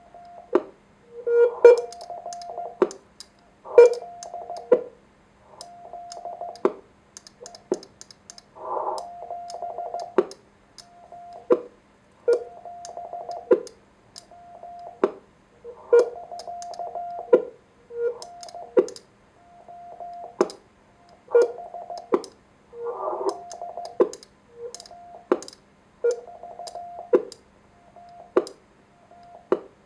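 Morse code sidetone from a homebuilt 1Watter QRP transceiver's built-in keyer, keyed with a paddle in quick dits and dahs. It is broken every couple of seconds by louder pops and clicks, the sign of the radio's AGC pumping and popping during transmit.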